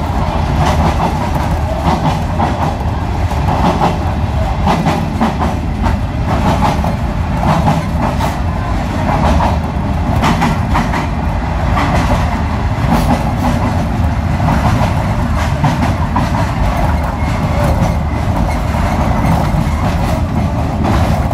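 A moving sightseeing train's wheels running on the rails: a loud, steady rumble with irregular clicks and knocks, heard inside the carriage and made louder as the train runs through a tunnel.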